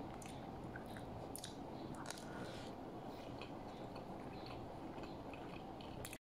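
Faint sounds of a person eating with their mouth close to the microphone: chewing rice, with scattered light clicks of a plastic spoon against a plastic takeaway container.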